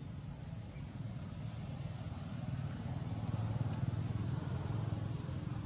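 Low, steady engine hum of a vehicle in the background, growing louder about three seconds in and easing slightly near the end.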